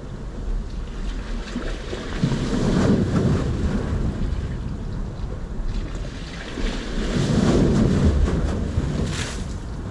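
Sea waves surging in and washing back, louder twice, with wind buffeting the microphone.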